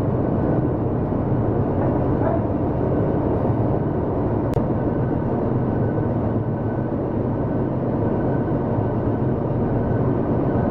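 Cargo ship's main diesel engine and machinery running steadily under way: a loud, even drone with a constant hum, and a single brief click about halfway.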